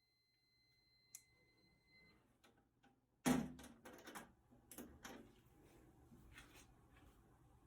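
Clicks and knocks of handling: a sharp knock about three seconds in, then a quick run of lighter clicks and knocks. A faint steady tone sounds for the first two seconds.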